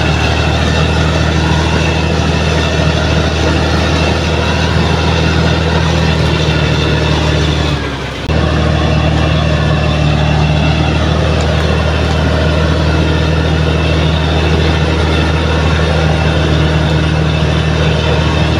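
Bulldozer's diesel engine running steadily with a strong low drone. The sound drops out briefly about eight seconds in, then carries on as before.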